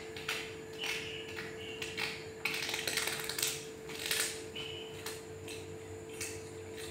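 A run of sharp clicks and taps with scratchy rattling, densest and loudest around the middle, from a young monkey scrambling and tumbling on a tiled floor and a cloth. A steady low hum runs underneath.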